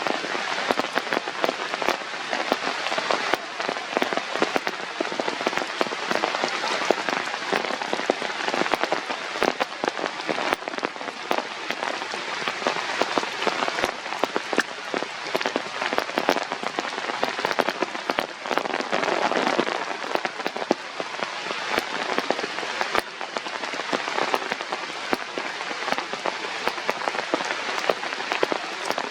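Rain pattering steadily on a surface, a dense hiss full of small sharp taps.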